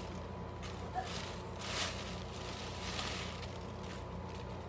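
Clothing rustling as shirts are handled and tossed aside, with two brief swishes of fabric, over a steady low hum.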